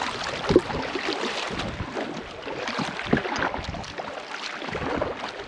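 Canoe paddle strokes splashing in river water, with a sudden louder hit about half a second in.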